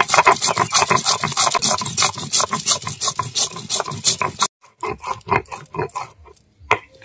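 Stone hand-muller (batta) grinding whole spices and cashews on a silbatta stone slab: quick, rhythmic rasping strokes of stone on stone. They cut off abruptly about four and a half seconds in, then give way to fewer, softer strokes through the wet paste.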